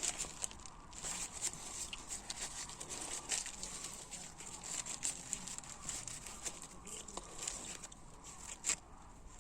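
Faint rustling, scraping and small irregular clicks of a hydraulic lifter's inside being cleaned out by hand, with one sharper click near the end.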